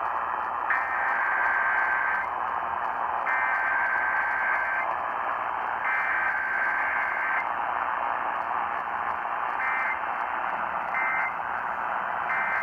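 Emergency Alert System SAME header data bursts received over AM radio: three buzzy two-tone bursts of about a second and a half each, then three short ones near the end. All are heard through steady AM reception hiss.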